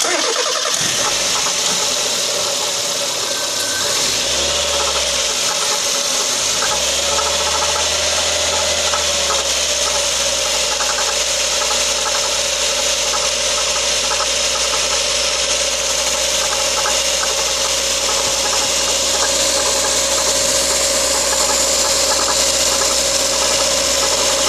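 Mazda Protegé engine running with a knocking noise, under a steady whine that wavers at first and settles about ten seconds in.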